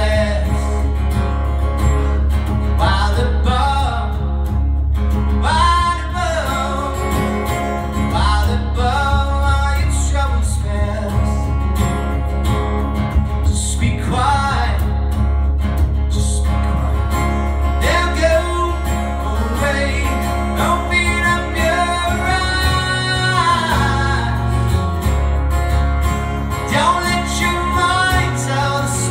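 Acoustic guitar played live, with a sung vocal line gliding over it.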